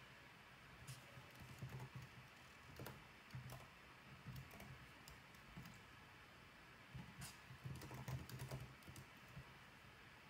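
Faint keystrokes on a computer keyboard in uneven bursts, busiest about seven to nine seconds in: a command being typed into a terminal.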